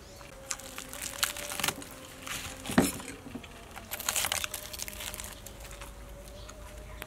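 A metal spoon scraping and tearing the crisp skin of a whole deep-fried chicken: irregular crackles and crunches in clusters, with one sharp crack a little under three seconds in. A faint steady tone runs underneath.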